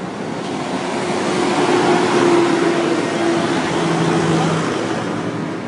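A tractor driving past with its engine running steadily; the sound grows louder, peaks about two seconds in, then fades as it moves away.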